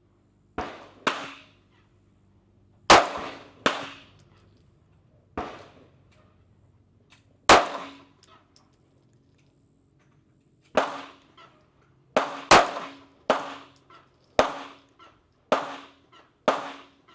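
A string of 9mm pistol shots from a Canik Mete MC9L, about sixteen in all. They are fired irregularly, with a pause of a few seconds midway and quicker shots toward the end, each with a short ringing decay.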